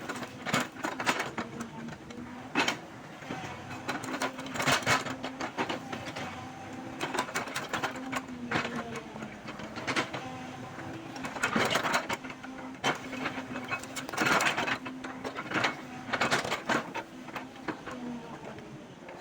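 Excavator working: the engine and hydraulics run with a steady hum that shifts slightly in pitch, broken by frequent irregular loud cracks and clatter as it works through dense brush.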